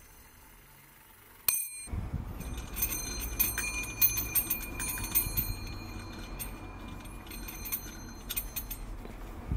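The single domed hour bell of a fusee clock ringing as it is handled and its retaining nut is unscrewed: a sharp tap about a second and a half in sets it ringing, then small metallic clicks and handling noise run on while the bell's ring sustains, dying away near the end.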